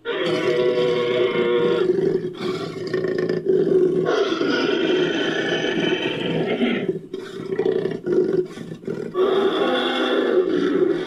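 Fictional creature's roar made from edited animal sound effects: a long, rough roaring call that starts suddenly, swells in three strong stretches with weaker, grating passages between, and cuts off abruptly.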